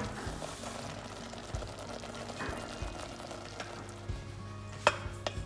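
Cream and bacon sauce simmering and bubbling in a metal pan, with background music over it. A wooden spatula stirs the sauce and knocks sharply against the pan twice near the end.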